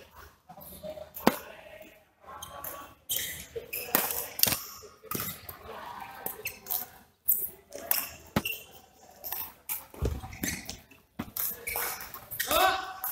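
Badminton doubles rally: rackets striking the shuttlecock in sharp, irregularly spaced pops, with rubber-soled court shoes squeaking on the court mat.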